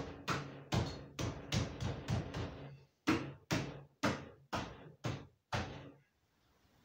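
B-pillar trim panel being knocked into place against an FJ Holden's steel body: about fourteen sharp knocks in uneven runs, each with a short low ring, stopping about six seconds in.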